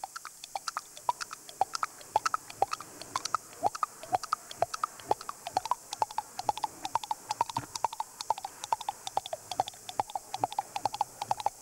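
A performer imitating a horse trotting by mouth: a long run of tongue clicks, about four or five a second, giving a clip-clop hoofbeat rhythm.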